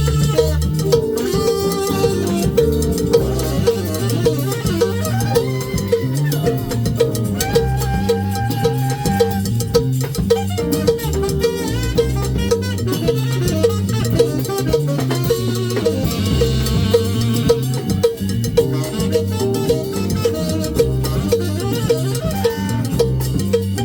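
Live band playing upbeat Latin-style music, with a bass line stepping from note to note under a single melody line and a steady percussive pulse.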